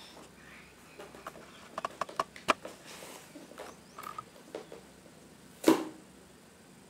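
Toy packaging being handled and opened: scattered light clicks and rustles, with one louder short burst of noise near the end.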